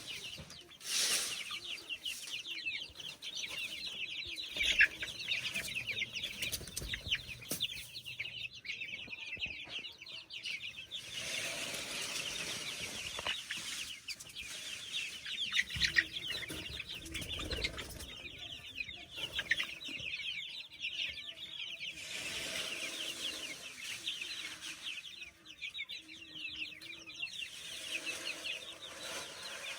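A brooder-full of baby chicks peeping continuously, many high, short cheeps overlapping, with a few soft thumps and rustles of the birds moving about.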